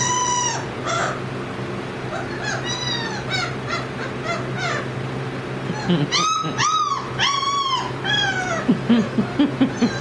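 Three-week-old Great Dane puppies whining and yelping at play, in high, arching cries. The loudest cries come a little past halfway, and a quick run of short, low grunts follows near the end.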